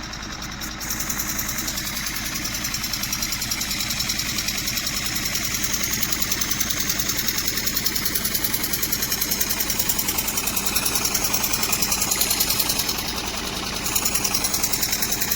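Restored miniature steam engine running steadily with a fast, even beat, briefly easing off near the end before picking up again.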